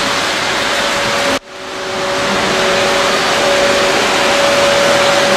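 Lionel O gauge model trains running on the layout track: a steady rolling rumble of wheels on rail with a constant motor hum. The sound cuts out abruptly about a second and a half in, then fades back up.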